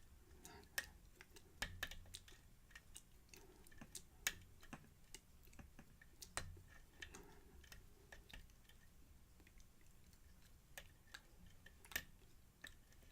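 Faint, irregular metallic clicks and ticks of a lock pick and tension wrench working the pins of a pin-tumbler lock, a few per second, as the pins are set one by one toward opening.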